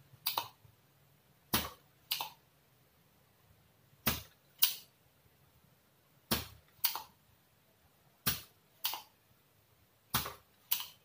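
Spring-loaded desoldering pump (solder sucker) snapping as it sucks molten solder off potentiometer legs on a circuit board. Six pairs of sharp clicks come about every two seconds, half a second apart within each pair.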